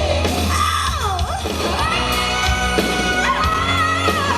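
Rock band music with long held notes over a steady low bass, and a sliding, bending note about a second in.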